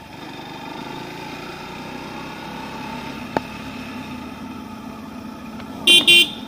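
Motorcycle running steadily at riding speed with engine and road noise, heard from the rider's helmet. Near the end a vehicle horn gives two short toots, the loudest sound here.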